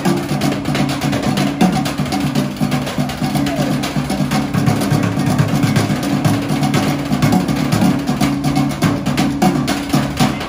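Live percussion group drumming a fast, busy rhythm of rapid hits, with a low sustained tone underneath.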